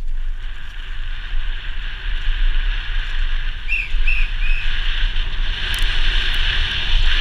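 Downhill mountain bike running fast over a dirt forest trail, heard from a helmet camera: wind rumbling on the microphone with a steady hiss of tyres and rattle, getting louder about halfway through. Three short high chirps about four seconds in.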